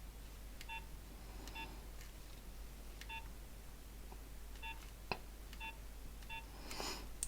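Nokia 1100 keypad beeps as its buttons are pressed: about six short, faint, identical key tones at irregular intervals, with a single sharp click about five seconds in.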